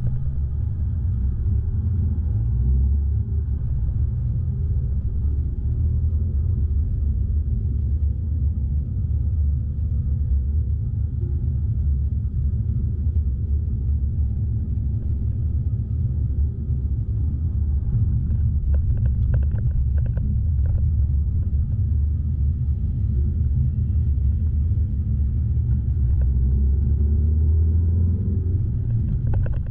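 Steady low rumble of a car driving, engine and road noise, with a few brief knocks about two-thirds of the way through.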